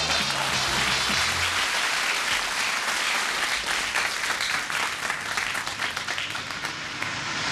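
Audience applause, with the last notes of a short musical sting under it for about the first second and a half. The clapping thins out toward the end.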